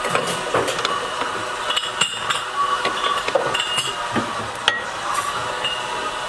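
Metal parts clinking and knocking as an aluminium motor housing, a wound copper stator and a steel pressing block are handled and set in place on a hand-operated press. Irregular sharp clinks, the loudest a little before five seconds in.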